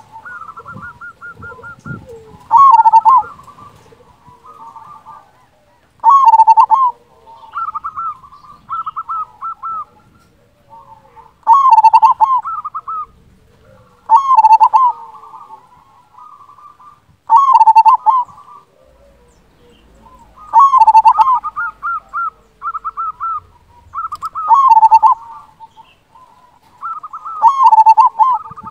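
Male zebra dove (perkutut) singing: a loud, deep-voiced cooing phrase repeated about every three seconds, eight times, with softer, rapid runs of cooing notes in between.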